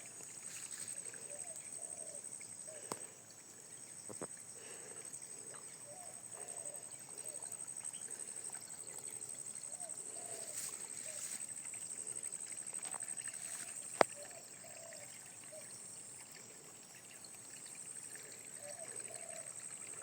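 Spring water trickling and pouring, under a steady high-pitched hum, with a sharp click about fourteen seconds in.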